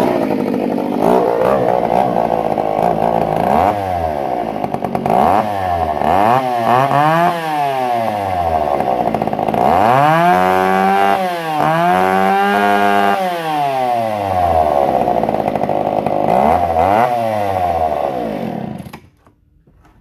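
A 1978 Echo CS-302 two-stroke chainsaw runs after a fuel line and carburetor overhaul. It is revved up and let back down to idle about six times, then stops near the end.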